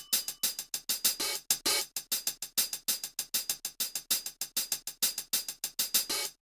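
Outro background music: an electronic beat carried by fast hi-hat-like ticks, about five a second, which cuts off suddenly near the end.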